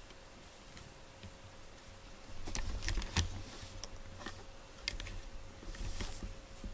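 A cat nosing right up against the camera: a run of light clicks and muffled bumps on the camera body, with a few single clicks after.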